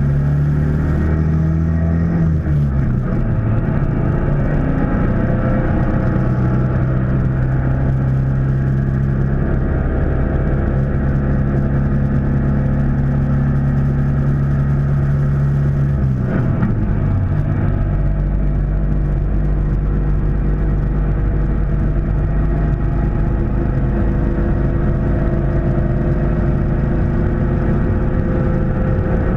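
Sidecar motorcycle's engine running steadily under way. Its note drops to a lower pitch twice, about two and a half seconds in and again a little past halfway.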